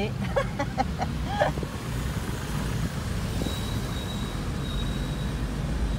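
Engine and road noise of a moving car heard from inside the cabin: a steady low rumble.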